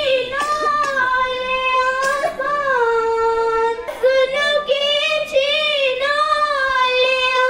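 A girl singing a naat, an Islamic devotional hymn, solo and without instruments, her pitch sliding between notes, with one long held note near the middle.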